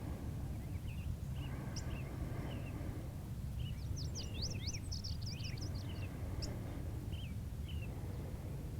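Small birds chirping, with scattered short calls throughout and a quick run of rising chirps around the middle, over a steady low background rumble.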